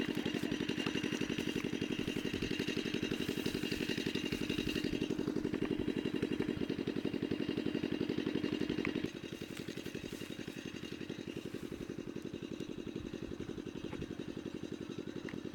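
A small engine running steadily with a fast, even thumping beat. It drops in level about nine seconds in and keeps running.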